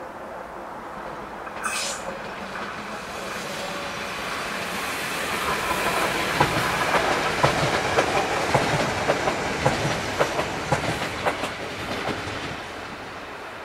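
Hessische Landesbahn Class 440 electric multiple unit (Alstom Coradia Continental) passing close by: a running rumble builds as it approaches. At its loudest its wheels click over rail joints and points about two or three times a second, then the sound fades as it moves away.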